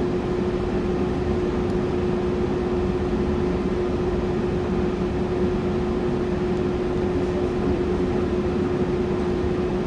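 Steady cabin hum of a stopped Tobu Tojo Line electric commuter train: one constant mid-pitched tone over a low rumble, with no change while the train stands still.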